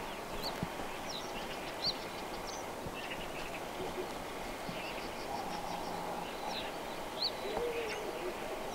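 Songbirds giving short high chirps over a steady background hiss, with a short low wavering call near the end.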